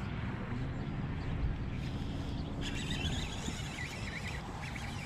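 Steady low rumble of wind and water around a boat. About two and a half seconds in, a fishing reel starts cranking as a hooked fish is reeled in.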